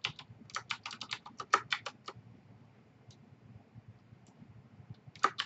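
Computer keyboard typing: a quick run of about a dozen keystrokes in the first two seconds as a spreadsheet formula is entered, then a few scattered clicks and a short pair of clicks near the end.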